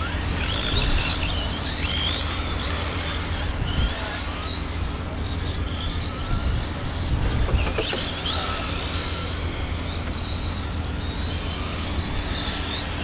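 Radio-controlled Euro Truck racers' electric motors whining, rising and falling in pitch as the trucks accelerate and brake around the track, over a steady low rumble.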